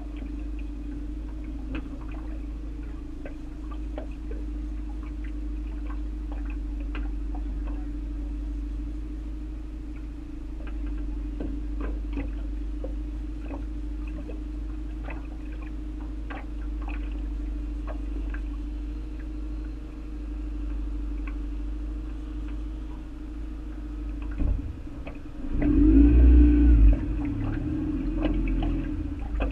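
Boat motor running steadily at a low, even hum while the boat moves slowly, with faint scattered ticks of water against the aluminum hull. Near the end, a louder burst of low rumbling noise.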